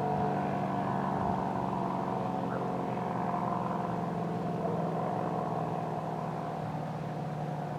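ACA Cyclone 125 electromechanical warning siren sounding a steady tone, its pitch holding level.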